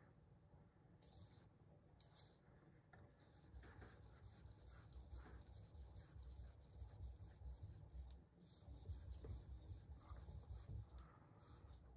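Faint scraping of a Santoku kitchen knife's steel blade stroked back and forth on a sharpening stone. The strokes start a few seconds in, repeat steadily, and come thicker near the end.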